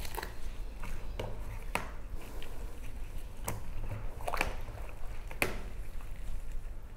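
Gloved hands squeezing and rubbing an oil-and-spice marinade into whole safi fish (rabbitfish) in a plastic bowl: irregular wet squelches, with about half a dozen sharper squishes spread through.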